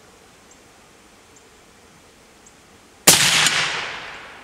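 A single suppressed rifle shot from a .308 Remington 700 fitted with a Gemtech HVT suppressor, about three seconds in: a sharp crack with an echo fading over about a second. A shorter sharp hit about half a second after the shot is the bullet striking a steel plate downrange.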